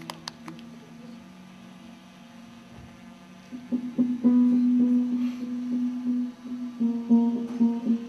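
Music: a low held tone fades, then about three and a half seconds in a guitar starts plucking a repeated low note in a steady rhythm, with a few higher notes joining. The last few claps of applause are heard at the very start.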